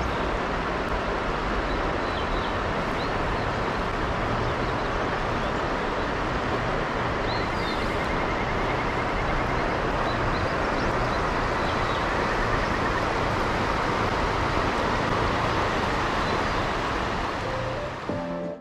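Steady rush of river water flowing over shallow stones, with small birds chirping faintly now and then above it.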